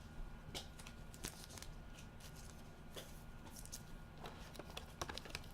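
Faint rustling and light clicks of trading cards being handled and slid against each other, a little busier near the end.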